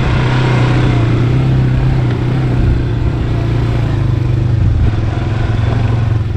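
ATV engine running at a steady pitch while being ridden.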